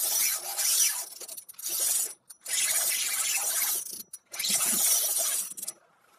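Close handling noise: scraping and rubbing against the phone's microphone in about four bursts of roughly a second each, broken by short silent gaps, the last ending near the end.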